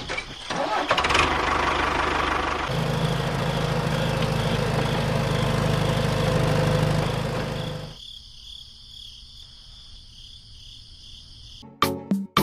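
An engine, likely the tractor's, running at a steady pitch from about three seconds in after a rough, noisy start, then cutting off suddenly about eight seconds in.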